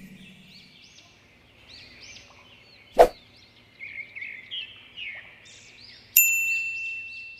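Baby munia (pipit) chicks chirping over and over with short, high begging calls as they are fed. A sharp pop comes about three seconds in, and a bell-like ding a little after six seconds rings on to near the end.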